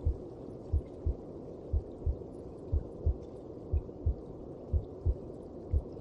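A mother's heartbeat as heard from inside the womb: a slow, even double thump (lub-dub) about once a second, over a steady low whooshing rumble.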